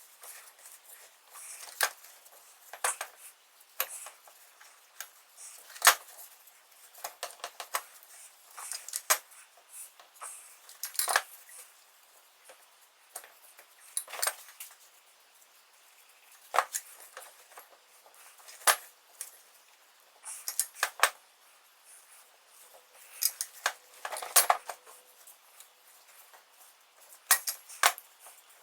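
Small metal tools and parts clinking and clattering as they are handled and set down, in irregular sharp strikes, some singly and some in quick clusters.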